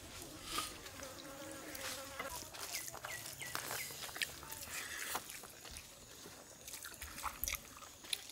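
Faint squishing and clicking of fingers mixing rice with mutton curry on a banana leaf, and of a man eating it by hand, with a few short chirps around the middle.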